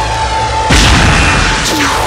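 Missile launching from a fighter jet, as an animation sound effect: a sudden loud blast about a second in, then a falling whistle near the end, over background music.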